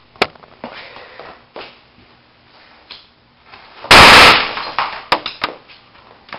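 A homemade airsoft grenade going off: one loud bang about four seconds in, loud enough to clip the recording, with a short ringing tail. Small clicks and handling knocks come before and after it.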